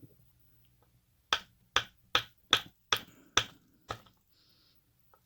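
A run of seven sharp taps, about two and a half a second, from a Mul-T-Lock cylinder being taken apart by hand to get its pins out.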